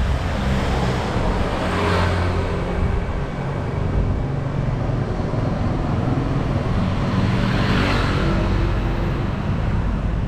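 Road traffic: motor vehicle engines running steadily, with vehicles passing close by about two seconds in and again near eight seconds.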